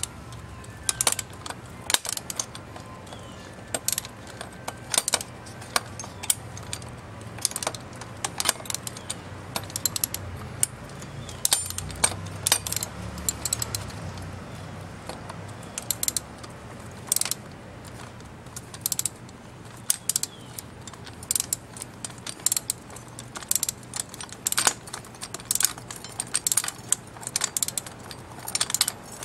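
Socket ratchet wrench clicking in short, irregular runs as a nut is backed off a bolt, with light metal clinks of the tools against the steel handle brace.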